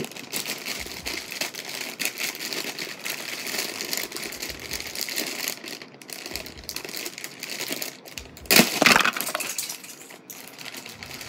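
Clear plastic bag full of cardboard jigsaw puzzle pieces crinkling as hands handle it and work at its sealed top. The loudest crackle comes about nine seconds in.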